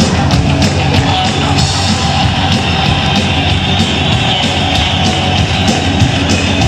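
Loud amplified music with a steady, fast drum beat, about three strokes a second.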